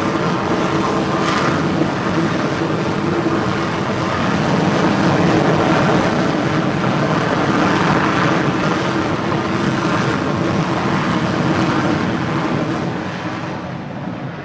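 Northrop Grumman X-47B's turbofan jet engine running loud and steady, a dense rushing roar with a low hum in it, fading over the last couple of seconds as the aircraft goes.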